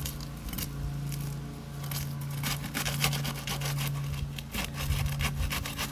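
Brittle asphalt roof shingle being pried loose and tearing: a dense run of crackling and scraping from about two and a half seconds in to near the end, over a steady low hum. The crackle is the sign of a brittle shingle that will not lift without breaking.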